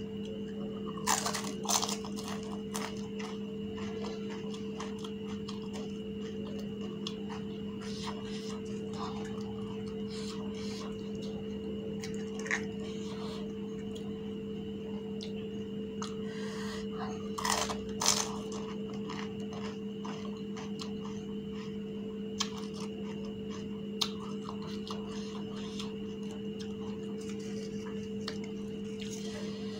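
Crisp fuchka (pani puri) shells crunching and clicking as they are handled, filled and bitten, with the loudest crunches about a second in and again a little past halfway. A steady hum runs underneath.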